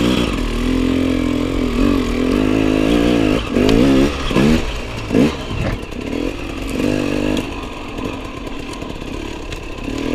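Enduro dirt bike engine revving up and down in repeated bursts, then settling to steadier running at lower revs for the last couple of seconds.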